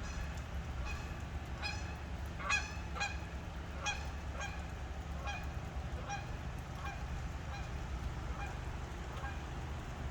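Geese honking in a run of short calls, one or two a second, loudest about two to four seconds in and fading toward the end. Under them runs a steady low rumble of gusty wind on the microphone.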